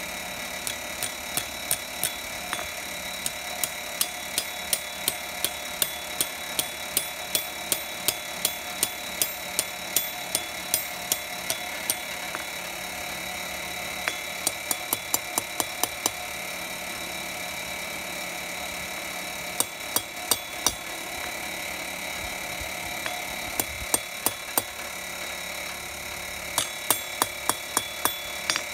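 Hand hammer striking a thin red-hot metal bar on an anvil: sharp metallic blows about two to three a second, in runs with short pauses between them.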